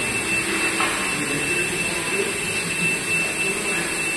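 Steady mechanical hiss with a constant thin high whine. The mix fits workshop machinery such as fans or ventilation, and faint voices can be heard under it.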